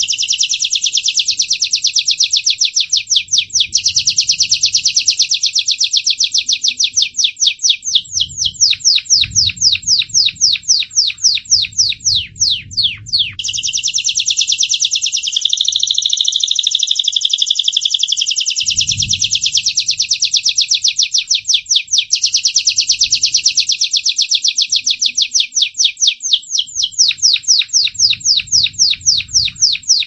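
Crested Gloster canary singing a long, unbroken song: warbled phrases alternating with fast trills of rapidly repeated notes, several a second.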